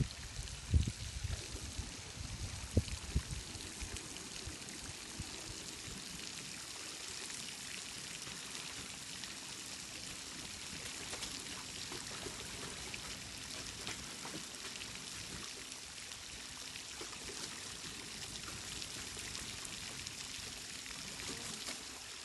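Steady splashing of falling water, as from a fountain spraying into a lake. A few low knocks come in the first three seconds.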